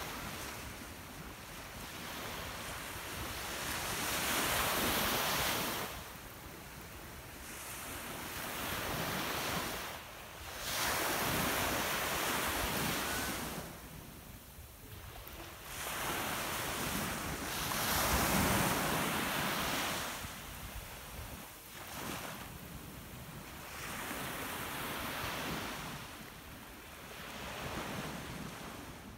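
Small sea waves breaking on a sandy beach, the surf rising and falling in a swell every few seconds, with wind rumbling on the microphone.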